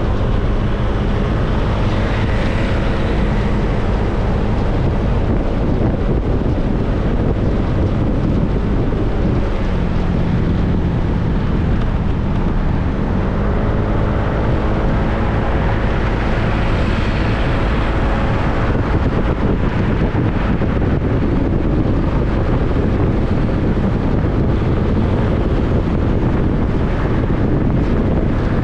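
Motorcycle engine running on the move, with heavy wind noise on the microphone. The engine note dips and then rises again about ten to fourteen seconds in.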